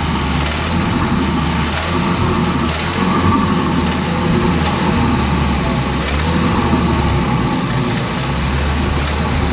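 Ford Focus RS engine running steadily with a knock that the owner takes for rod knock, a failing connecting-rod bearing.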